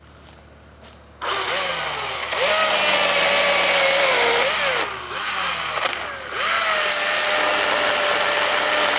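Husqvarna Power Axe 350i battery-powered chainsaw starting up about a second in and cutting through a tree trunk, its electric motor whine sagging in pitch and recovering several times as the chain bites into the wood.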